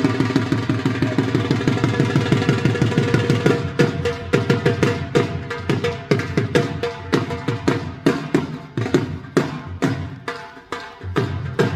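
Dhol drumming in a bhangra rhythm: rapid, dense strokes for the first few seconds, then a looser pattern of sharp beats.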